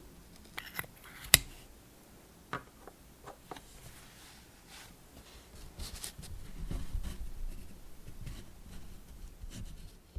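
Close-up handling of small art materials: a few sharp clicks and light taps in the first few seconds, one much louder than the rest, then a longer stretch of rustling and rubbing.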